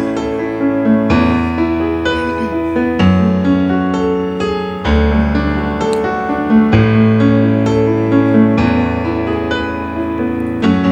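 Electric keyboard playing sustained chords that change every second or two, the instrumental introduction to a worship song before the singing begins.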